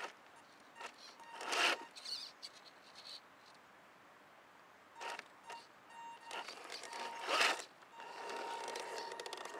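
Electric motor and geared drivetrain of a scale RC crawler whining in short bursts as it creeps forward under throttle, then running steadily for the last couple of seconds.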